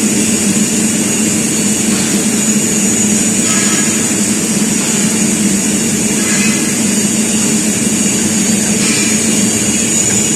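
CNC angle drilling machine running: a steady low hum with a high, even whine over it.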